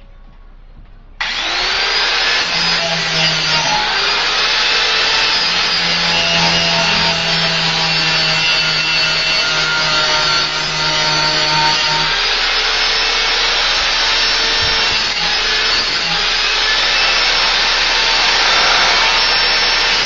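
Makita 4-inch angle grinder with a sanding pad switched on about a second in. It spins up with a brief rising whine, then runs steadily, grinding the edge of a steel lawnmower blade to sharpen it, its pitch shifting as the pad is pressed to the metal.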